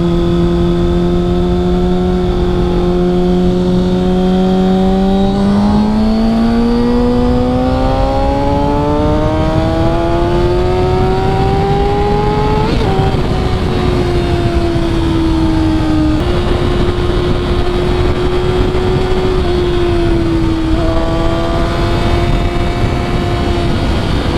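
Kawasaki ZX6R inline-four with an MJS cat-delete header and full exhaust, heard from the rider's position at speed. It holds a steady note, climbs smoothly under acceleration for about seven seconds, drops at an upshift, then settles into a steady cruise with a couple of small dips. A rushing noise runs underneath.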